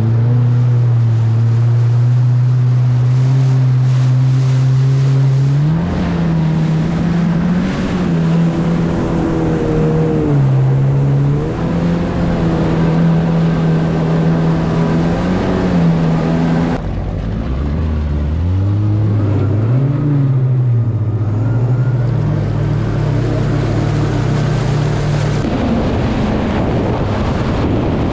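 Four-stroke jet ski engines running at speed, their pitch holding steady, then rising and falling as the throttle changes, over the rush of water and spray. About two-thirds of the way through the pitch climbs from low revs as a jet ski accelerates.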